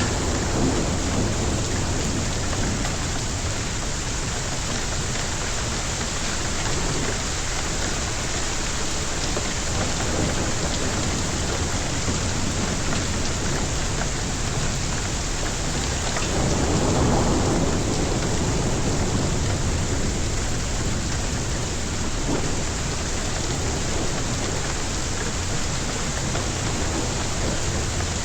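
Heavy rain pouring steadily in a thunderstorm, with a rumble of thunder swelling a little over halfway through.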